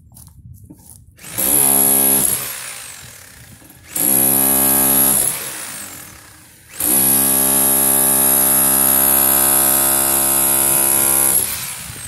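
Electric jackhammer hammering into the sheet-metal body of a limousine around a window opening. It comes in three runs: a short one about a second in, another about four seconds in, and a longer one of about four and a half seconds from near seven seconds. Each run dies away gradually afterwards.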